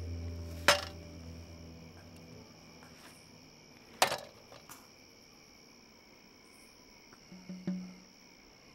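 Sharp clicks from a water-cooled machine gun on a wheeled carriage being handled and readied: a small one under a second in and the loudest about four seconds in, with a faint follow-up. They sit over a steady high-pitched tone, and a low music drone fades out in the first second or two.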